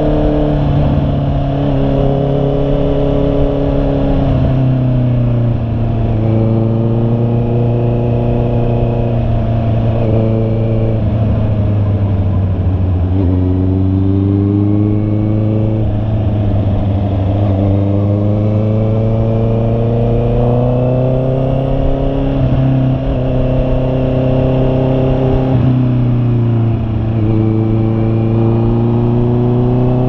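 Honda CB650R's inline-four engine running on the move, its pitch climbing and dropping back about half a dozen times with throttle and gear changes, over a steady rush of wind and road noise.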